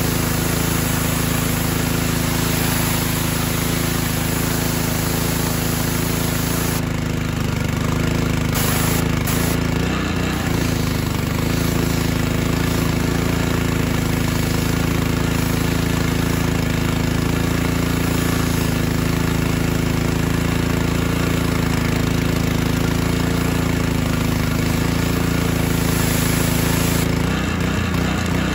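Small 190cc gas engine running steadily, driving a 3000 PSI triplex pressure-washer pump on its first run, which works well. A high-pressure water spray hisses at first and stops about seven to ten seconds in, leaving the engine running on its own.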